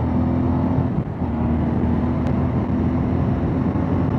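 Motorcycle engine under hard acceleration at high speed, passing about 160 km/h, over wind noise. The engine tone briefly drops about a second in, then carries on steadily.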